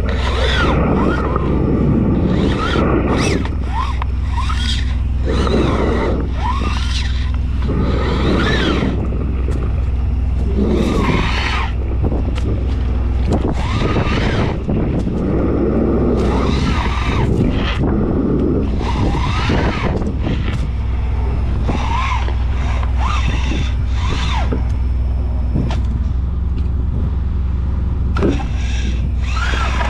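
An engine or motor running steadily with a low hum, with irregular high-pitched sounds rising and falling in pitch over it.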